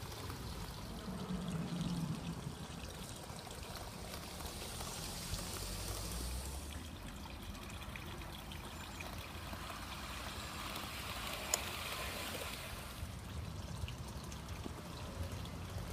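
Model electric trains running on outdoor track: a steady rushing hiss of wheels on rail that swells twice as trains pass.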